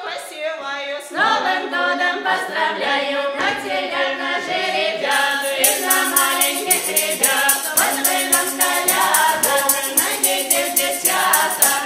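Folk ensemble singing a Russian Christmas carol in several voices without instruments, joined a little past halfway by a tambourine shaken in a steady, quick beat.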